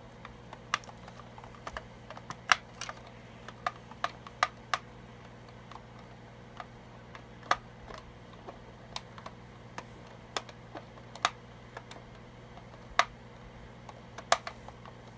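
Irregular light clicks and taps of hard plastic being handled: a plastic toy box and its clear plastic tray being lifted and set down while a small screw is undone.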